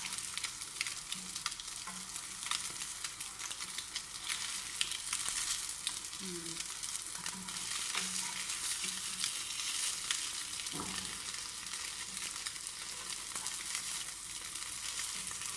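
Egg-dipped bread slices sizzling in a little butter in a non-stick grill pan, with steady crackling throughout. Now and then a metal spatula and fork scrape and tap against the pan as the slices are turned.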